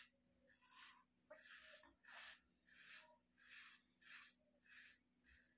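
Razor blade scraping through lathered stubble in short, quiet strokes, roughly two a second, during an across-the-grain pass.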